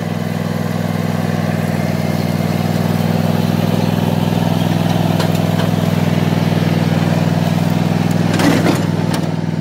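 John Deere riding lawn tractor's engine idling steadily, with a brief louder noise about eight and a half seconds in.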